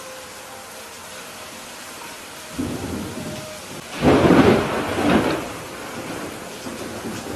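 Steady rain hissing through a thunderstorm. About two and a half seconds in, a thunderclap starts to rumble, grows loudest around the fourth and fifth seconds, then rolls away under the rain.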